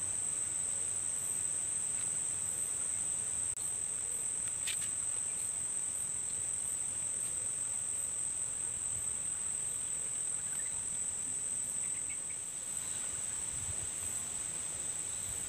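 Insects buzzing in a steady high-pitched chorus, with a light click about four and a half seconds in.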